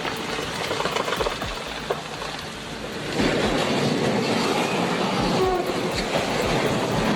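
A train running on the rails, a steady rumble of wheel and rail noise with scattered knocks, growing louder about three seconds in as it comes closer.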